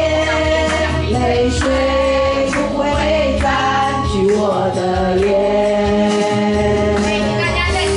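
A group of women singing a song together into handheld microphones, over an amplified backing track with a steady bass and beat.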